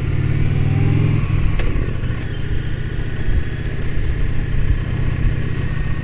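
Indian Challenger motorcycle's V-twin engine running while riding, louder for the first second and a half, then steady.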